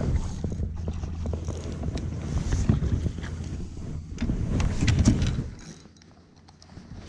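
Wind rumbling on the microphone out on the water, with scattered knocks and clicks, dying down about five and a half seconds in.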